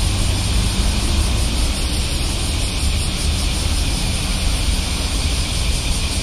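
Loud summer cicada chorus: a steady, high-pitched buzzing drone with a faint pulsing in it, over a low rumble of road traffic.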